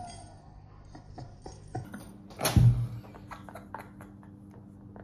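Stifled, mostly silent laughter and breathing, with one louder burst of breath about halfway through. A faint steady hum runs underneath.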